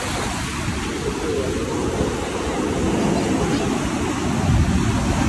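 Surf breaking and washing over the shallows and up the beach: a steady rush of water with a heavy low rumble, growing louder near the end.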